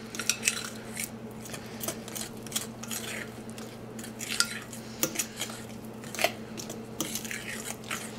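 A fork stirring thick pancake batter in a mixing bowl, clinking and scraping against the bowl's side in irregular strokes, several a second. A faint steady hum runs underneath.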